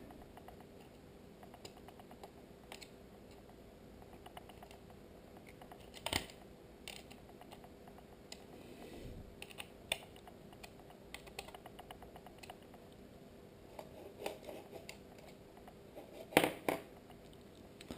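Faint, scattered clicks and taps of small camera parts and a screwdriver being handled, with a few sharper clicks about six seconds in, near ten seconds and twice near the end.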